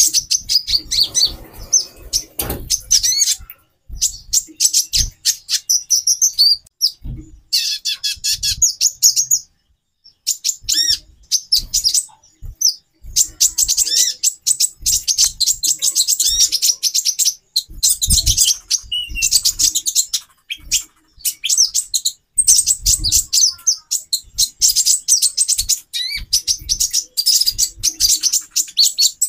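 Several female konin (kolibri ninja) birds chirping and twittering in rapid, high-pitched, near-continuous chatter, with a few short pauses and occasional low thumps. These are female calls of the kind played to raise a male konin's breeding drive.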